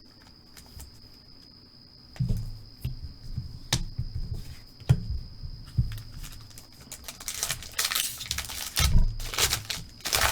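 A trading-card pack being handled and torn open: dull knocks from handling the cards, then the pack wrapper crinkling and ripping twice near the end.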